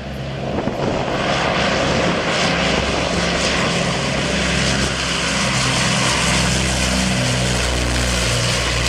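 Twin propeller engines of a Canadair CL-215 water bomber running at power, with the rush of spray as its hull skims the water scooping a load. The sound swells over the first second, then holds steady.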